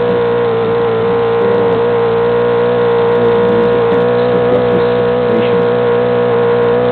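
Model airplane engine running steadily at a high, unchanging pitch.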